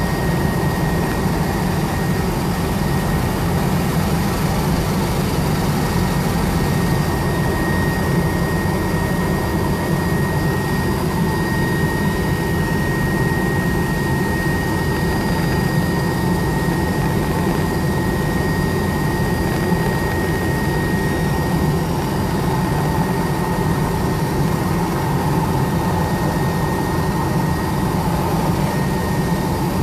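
Helicopter heard from inside its cabin: a steady drone of turbine engines and rotor, with a thin, constant high whine above it.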